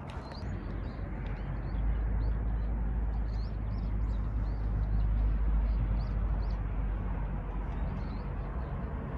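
Small birds chirping, with many short high calls coming several times a second, over a low rumble that swells to its loudest about halfway through and then eases off.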